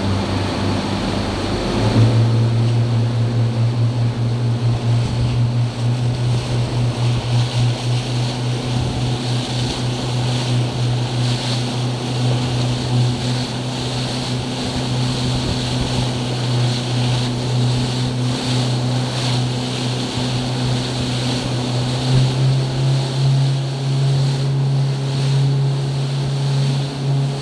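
Yamaha outboard motor opened up about two seconds in, then running steadily hard with water rushing along the hull; its note rises a little later on.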